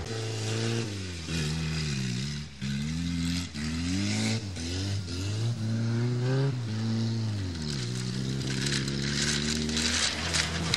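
Škoda 130's rear-mounted four-cylinder engine revving up and down again and again as the car drives across grass, with a hiss joining near the end as it comes closer. The engine runs badly: it sputters and won't pull, for a reason the owner doesn't know.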